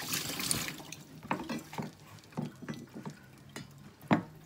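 Kitchen knife knocking and tapping on a wooden cutting board as garlic cloves are trimmed and cut: about eight irregular knocks, the loudest near the end.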